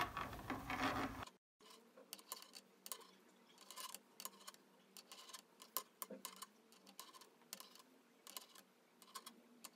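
Faint, irregular clicks of knitting needles tapping together as stitches are knitted.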